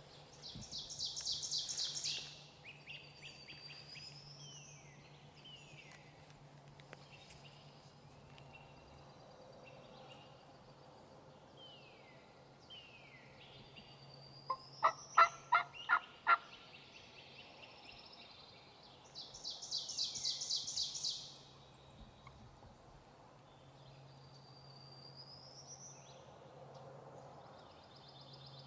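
A turkey gives a loud series of about six yelping notes about halfway through. Songbirds sing around it: a fast high trill near the start and again later, plus thin whistled notes.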